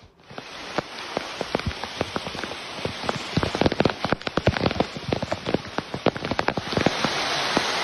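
Heavy rain with many sharp, close drop taps over a steady hiss of rain and rainwater rushing down stone steps. The hiss grows louder and steadier near the end.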